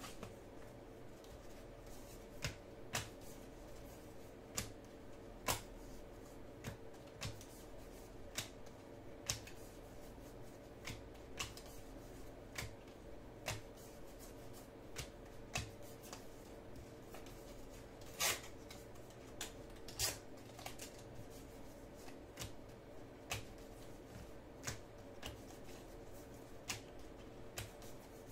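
A stack of baseball trading cards being flipped through by hand, one card at a time. Each card gives a light snap or click, at an uneven pace of roughly one a second, over a faint steady hum.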